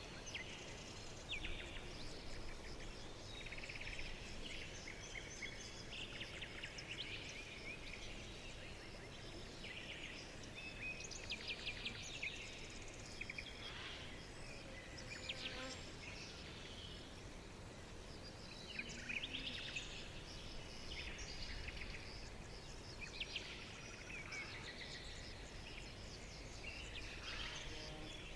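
Several songbirds chirping and singing together, with rapid trills now and then, over a steady low background noise.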